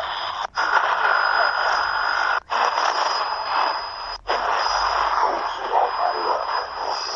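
Shortwave broadcasts from a Tecsun PL-368 radio's speaker, jumping from one stored station to the next about every two seconds with a brief mute at each step. Faint distant voices sit under static, with a steady high whistle throughout.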